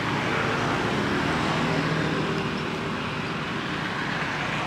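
Steady road traffic noise, with the low hum of a vehicle engine that fades after about three seconds.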